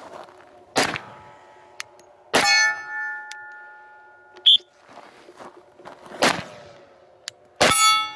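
Four shots from a 10mm Glock pistol, a few seconds apart; after the second and the fourth, a steel target rings for a second or two, a sign those shots hit the steel.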